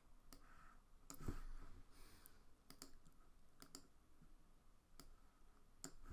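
Faint, scattered computer mouse clicks, a handful spread unevenly, over near silence.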